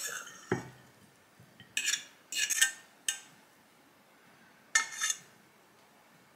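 A metal fork scraping and tapping egg and rice out of a frying pan onto a plate. There is a dull knock about half a second in, then a few short bursts of clinks and scrapes, the last group near the end.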